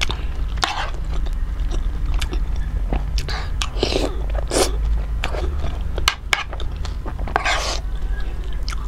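Close-miked chewing and biting of steamed chicken momos soaked in chutney: wet mouth clicks and smacks, with a few longer breathy bursts near the middle and toward the end.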